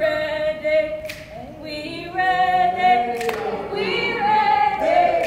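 A stomp team singing together without instruments: a few long held notes that step in pitch. Two sharp hits cut across the singing, one about a second in and one about three seconds in.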